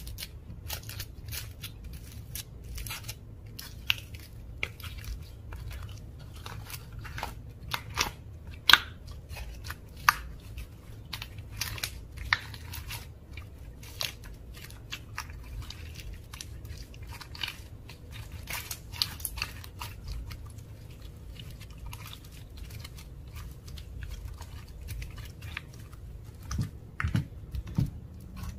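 Slime being squished, stretched and mixed by hand, giving many small irregular sticky clicks and crackles, with a few louder, deeper squelches near the end. A low steady hum runs underneath.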